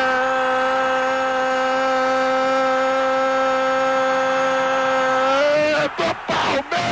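A man's voice holding one long shouted note for about five seconds, a football commentator's drawn-out goal cry. After it come a couple of short cries, then a new call that falls in pitch near the end.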